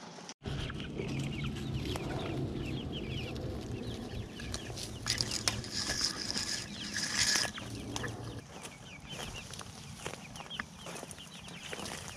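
Young chickens calling with many short high chirps and soft clucks, mixed with rustling and snapping of conifer branches and brush.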